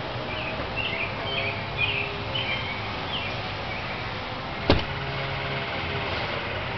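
Outdoor background ambience: a steady low hum with faint steady tones, several short high chirps in the first three seconds, and one sharp click about two-thirds of the way through, the loudest sound.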